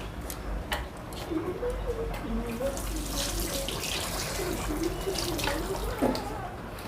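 Water running, as from a tap, with a faint voice wavering in the background.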